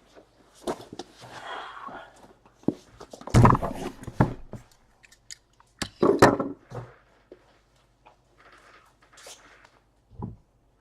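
Irregular handling noises from objects at a table: scattered clicks and knocks with short rustling bursts, loudest about three and a half and six seconds in.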